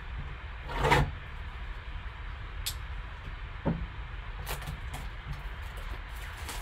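Gloved hands handling a shrink-wrapped trading-card box: a swishing slide about a second in, then scattered light clicks and knocks as the box is lifted and tipped, over a low steady hum.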